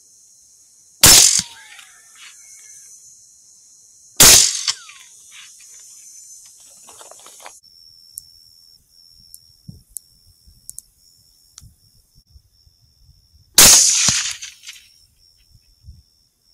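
Three rifle shots: sharp cracks about a second, four seconds and thirteen and a half seconds in, each with a short echoing tail.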